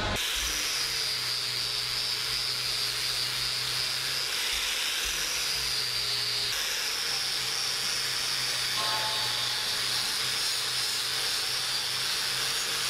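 Angle grinder running steadily with a non-woven abrasive (scotch-type) pad, polishing welds on stainless steel. It gives a high whine over a steady hum, with small shifts in pitch a few times.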